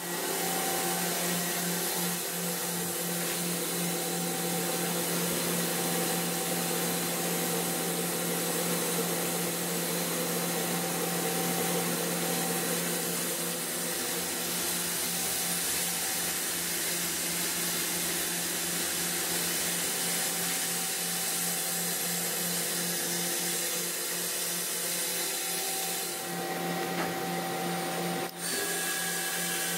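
A 2006 Mazak Nexus HCN-6000-II CNC horizontal machining center running, giving a steady mechanical hum and whir with a broad hiss. Near the end the hiss grows brighter for a couple of seconds, then drops off abruptly and the hum settles to a slightly different tone.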